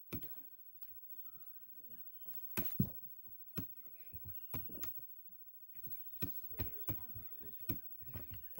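Scattered light clicks and taps at irregular intervals, a dozen or so, made while drawing a picture on a computer.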